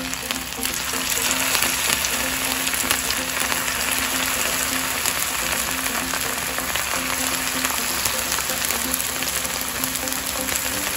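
Potato fingers deep-frying in hot oil in a pan: a steady, dense sizzle of bubbling oil, the oil hot enough to fry them crisp. Faint background music underneath.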